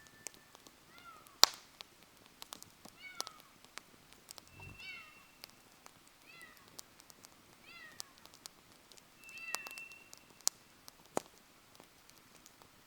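Wood fire crackling, with sharp pops scattered throughout. An animal gives short falling calls about every second and a half, along with a few brief whistled tones.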